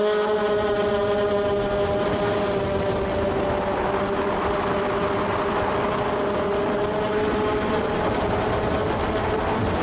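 Electric motors and propellers of a 250-size FPV racing quadcopter whining steadily. The pitch dips a little in the first second and climbs again near the end, over a rush of air noise.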